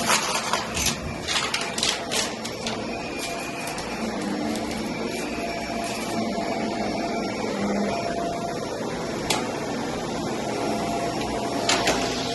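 Vacuum cleaner running on carpet, a steady drone with several sharp clicks and rattles in the first few seconds and a couple more later.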